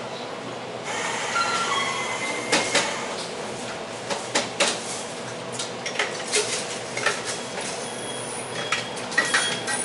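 Convenience-store automatic coffee machine running with a steady whirr that starts about a second in, among many sharp clicks and clinks of cups and utensils.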